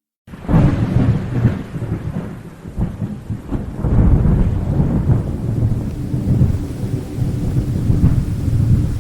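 Thunderstorm with heavy rain, cutting in suddenly from silence: a deep, crackling thunder rumble swells and falls over the steady hiss of rain.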